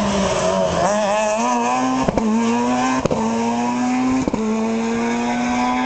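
Rally car engine at full throttle pulling away: the revs waver through the corner, then climb steadily in three pulls, each broken by a sharp crack at the gear change.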